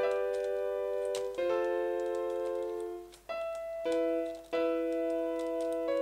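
FL Keys software piano playing a run of sustained chords in the middle register, a new chord every second or so, triggered from a computer keyboard used as a piano keyboard. Faint clicks of the keys being pressed sound along with the chords.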